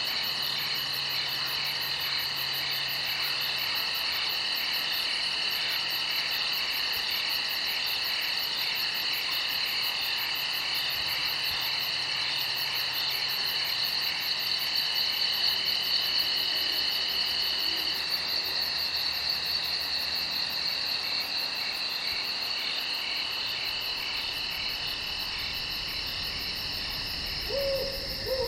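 Night chorus of crickets and other insects trilling steadily at several pitches at once. A short, low animal call comes near the end.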